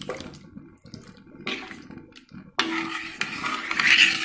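Liquid curry sloshing and pouring in a kadai. After two brief splashes, it starts suddenly about two and a half seconds in and is loudest near the end.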